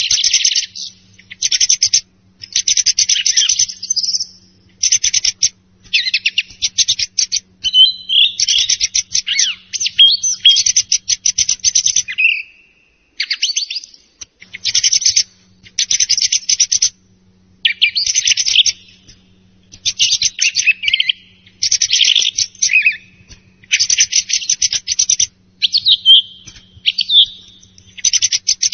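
Song thrush singing: a string of loud phrases of rapid, clipped notes, some with clear whistled notes among them, each phrase lasting about a second with short pauses between.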